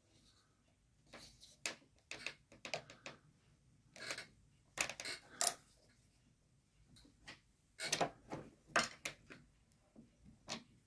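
Light metallic clicks and clinks in irregular clusters, from handling at a Lee turret reloading press.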